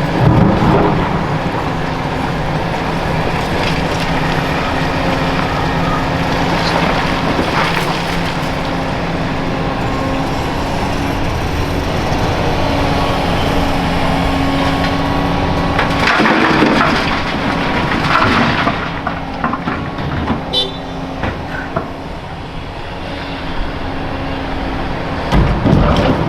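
Large excavator's diesel engine running steadily under hydraulic load, with crashes and rattles of crushed concrete being dropped into a steel dump-truck bed several times: loudest near the start, past the middle and near the end.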